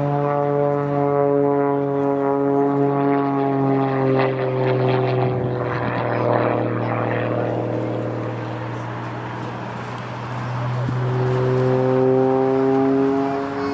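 Corvus Racer 540 aerobatic plane's engine and propeller droning as it flies a display. Its pitch falls about four seconds in, the sound fades a little, then the pitch and level rise again near the end.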